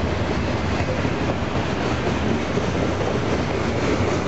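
Covered hopper cars of a long freight train rolling past: steady rumble and rattle of steel wheels on the rails.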